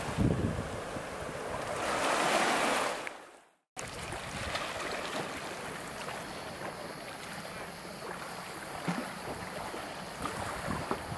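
Small waves washing up onto a pebble shore, swelling and then fading out about three and a half seconds in. After a brief silence comes a steady hiss of wind on the microphone, with light scattered ticks.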